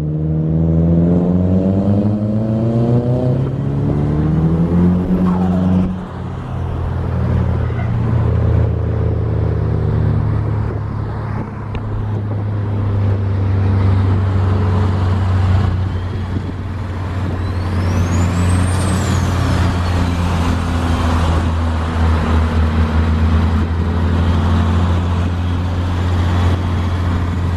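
Car engine revving up over the first few seconds, then running steadily with a deep, even hum. A high whistle rises and falls once near the middle.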